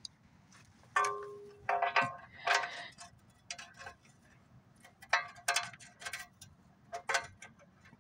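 Metal objects clinking and knocking together: about a dozen irregular sharp hits. Several ring briefly with a clear tone, the longest about a second in.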